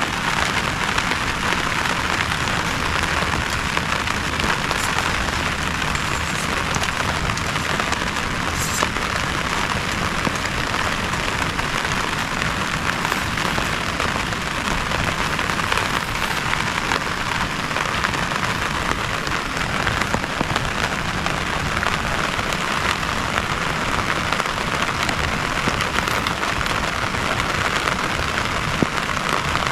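Heavy rain falling steadily, a dense, even patter of drops striking surfaces.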